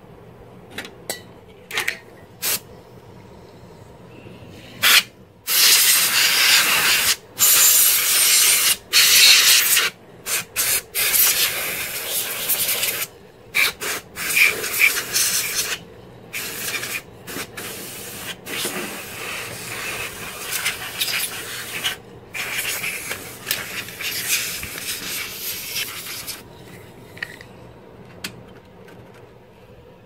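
Canned compressed air blowing dust out of a desktop PC case, in repeated hissing bursts of a second or a few seconds each. The spraying starts about five seconds in, after a few sharp clicks, and stops a few seconds before the end.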